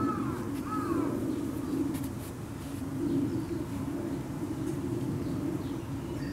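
Domestic cat growling: a low, continuous growl that eases briefly a couple of times. It is a cat's warning growl during a face-off with another cat.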